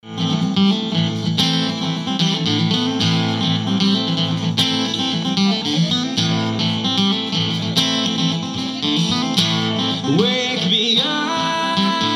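Acoustic guitar playing a song, with picked and strummed chords; a man's singing voice comes in about ten seconds in.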